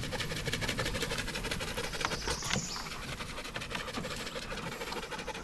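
Spinning fishing reel being cranked, giving a fast, steady clicking.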